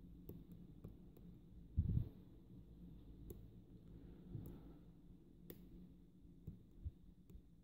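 Faint, scattered clicks of a steel hook pick lifting the pin tumblers inside a UAP 6-pin euro cylinder lock under light tension, with one dull, low knock about two seconds in.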